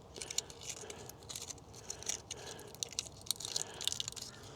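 Batteries being fitted into a TV remote's plastic battery compartment: faint, irregular small clicks and scrapes.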